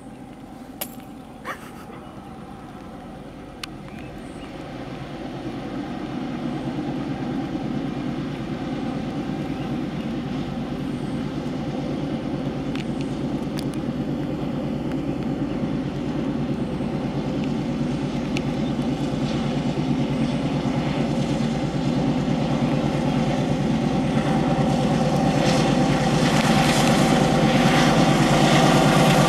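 WDM-3A diesel-electric locomotive with an ALCO 16-cylinder engine, running under load and growing steadily louder as the train approaches. A rising hiss joins it over the last few seconds.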